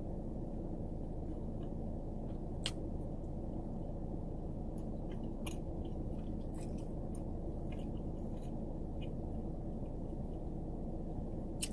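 A person chewing a mouthful of Subway sandwich, with a few soft mouth clicks scattered through it, over a steady low background hum.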